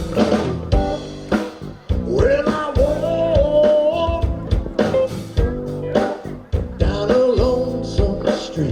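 A live blues-rock band playing, with a sung melody line over guitar and a drum kit keeping a steady beat.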